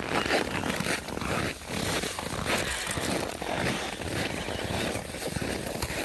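A long wooden branch scraping and dragging over snow as a dog pulls it, mixed with crunching in the snow; an uneven, continuous rustling scrape.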